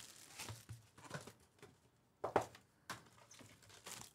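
Plastic shrink wrap torn and crinkled off a hobby box of trading cards, then the cardboard box opened and the foil packs handled: a handful of scattered rustles and crackles, the loudest a little past halfway.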